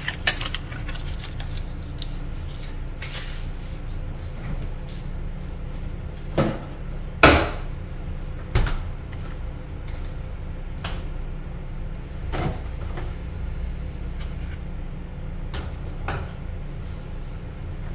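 Scattered knocks and clicks of kitchen handling, like cupboard doors or things set down on a counter, over a steady low hum. The loudest knock comes about seven seconds in.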